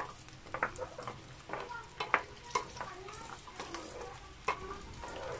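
Whole garlic cloves frying in hot olive oil, stirred with a wooden spatula. The spatula knocks and scrapes against the pan in irregular sharp clicks over a low steady sizzle.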